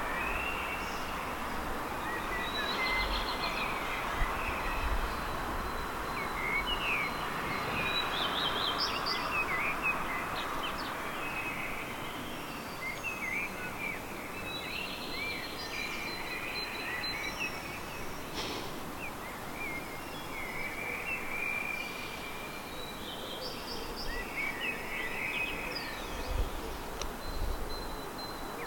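Songbirds singing at night, a continuous run of short, quick, chirping and warbling phrases over a steady background noise.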